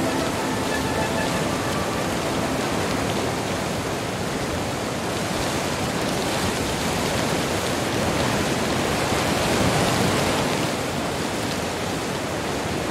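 Heavy thunderstorm rain pouring down steadily, a dense even hiss of rain on the ground and roof.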